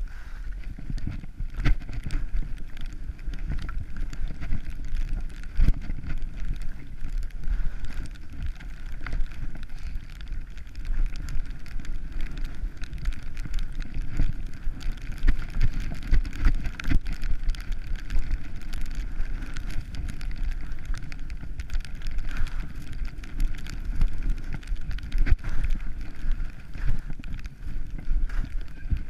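Skis running and scraping over snow during a steady downhill run, with wind rushing over the skier's worn camera and irregular small knocks as the skis chatter over the surface.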